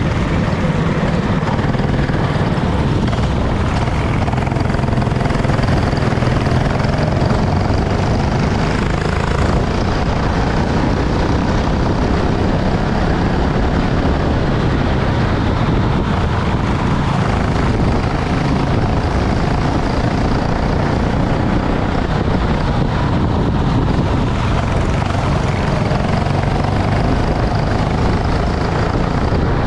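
Kart engine running continuously under a dense, noisy wash, its pitch wavering only slightly.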